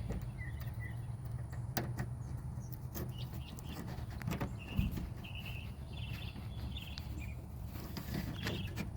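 Scattered light clicks and knocks of hands working the latch cable and its clip inside a 1999 Ford F250 Super Duty's rear door, over a steady low hum.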